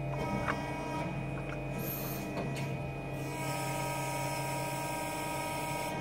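CNC hydraulic press brake running: a steady machine hum made of several even tones with a motor whine. A short high hiss comes about two seconds in, and a broader hiss joins at about three and a half seconds.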